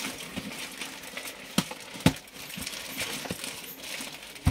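Plastic courier mailer bag crinkling and tearing as it is pulled open and off a cardboard box, with two sharp snaps about half a second apart near the middle.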